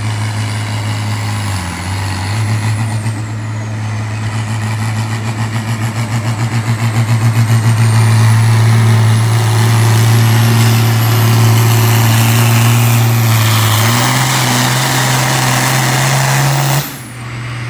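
International Harvester pulling tractor's diesel engine running flat out under full load while dragging the weight sled, growing louder as it comes down the track. It throbs unevenly for a few seconds while a high whistle climbs steadily in pitch over the run. The sound cuts off abruptly near the end.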